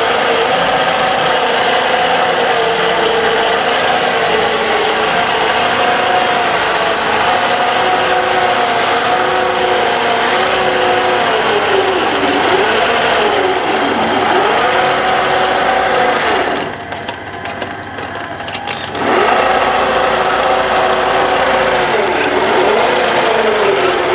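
Wood lathe running with a turning tool cutting into the spinning wooden musal, a steady hiss of cutting over the motor hum. The hum's pitch sags and recovers several times, as the motor slows under the cut. The cutting noise drops away for about two seconds past the middle, leaving the motor running more quietly.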